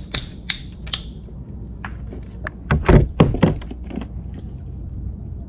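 A few sharp clicks, then a quick cluster of heavy thumps about three seconds in, from handling gear and bait on a plastic kayak's hull while a fishing hook is rebaited.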